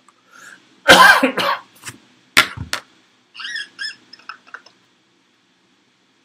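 A man coughing: one loud, rough cough about a second in, then two short, sharp coughs. A few quieter, higher-pitched short sounds follow.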